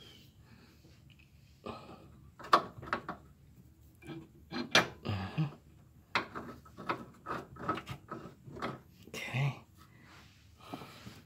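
Irregular metal clinks, taps and scraping from hand work on the mounting bolt of a car's front lower control arm, a run of several knocks a second starting about two seconds in.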